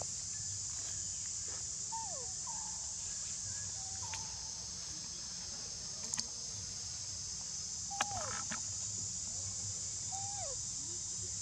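Steady, high-pitched drone of insects, with several short animal calls sliding down in pitch scattered through it, and a few sharp clicks, the loudest about eight seconds in.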